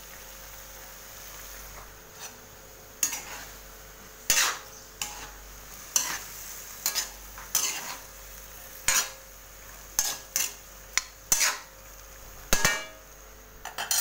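Metal ladle scraping and knocking against a metal wok while stir-frying string beans and eggplant: about a dozen sharp, irregular clatters starting about three seconds in, over a faint steady sizzle.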